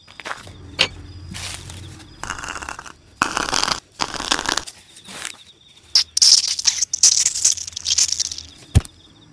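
Cardboard props handled on a cardboard plate: a series of short scraping, crinkling and rubbing noises, brighter and hissier in the second half as a cardboard squeeze-bottle is pressed over the cardboard hot dog, with a sharp click near the end.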